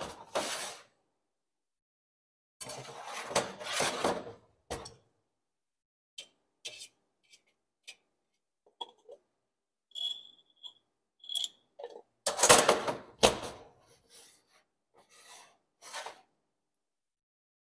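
Clinks, taps and rubbing of steel forceps against plastic-lidded culture jars and a stainless-steel work surface, coming in irregular bursts with the loudest clatter a little past the middle. Two short squeaks come about ten and eleven seconds in.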